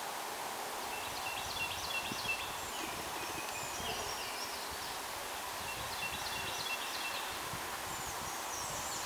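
Wild songbirds singing in the surrounding trees: short, quick phrases of high chirps and trills, repeated every couple of seconds over a steady outdoor hiss, with a low irregular rumble underneath.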